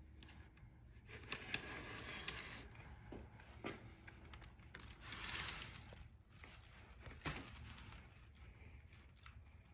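Faint handling sounds of small plastic N-scale model coal cars being moved by hand on the track: a few sharp plastic clicks with two short stretches of rustling and sliding.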